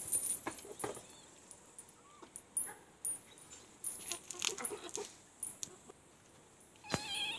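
Scattered rustling and light knocks, with one short, high-pitched animal cry near the end.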